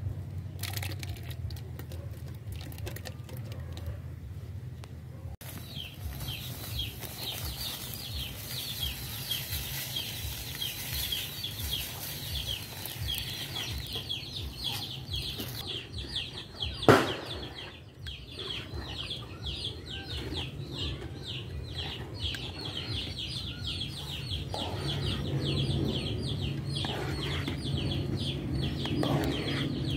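Chickens calling over and over in short, falling chirps, starting about five seconds in. A single sharp knock comes about 17 seconds in.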